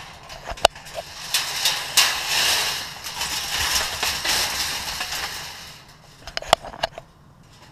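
Sharp clanks and rattles from a wire-panel cage trap, with a long crackling rustle between them, as a trapped aoudad moves about inside it. A few hard knocks come near the start and again near the end.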